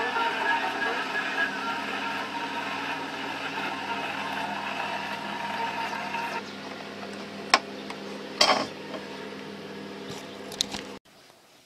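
A 78 rpm record playing out on an acoustic gramophone, the soundbox giving a dense scratchy sound from the groove. About six seconds in the needle is lifted and only a low steady hum of the turntable mechanism remains, with two sharp clicks as the soundbox and tone arm are handled. The sound cuts off abruptly near the end.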